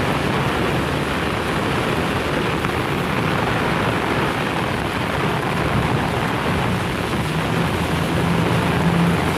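Heavy rain pouring steadily, an even dense hiss. A low steady hum rises under it in the last two seconds or so.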